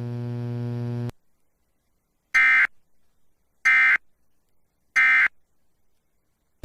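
Emergency Alert System end-of-message: three short, loud data bursts of the SAME digital code, about a second and a bit apart, signalling that the alert is over. Before them a steady electrical buzz under the broadcast cuts off about a second in.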